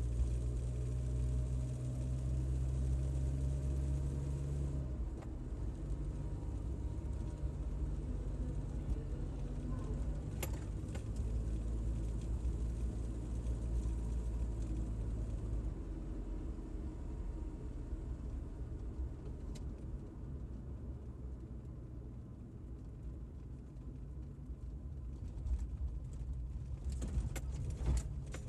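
Car engine and tyre noise heard from inside the cabin while driving, a steady low hum whose note changes about five seconds in and again midway. A few light clicks or rattles sound about ten seconds in and near the end.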